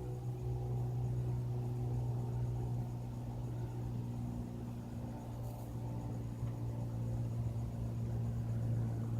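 Steady low engine drone of a small propeller plane, which the recordist takes for a Cessna flying over, holding one even pitch with no rise or fall.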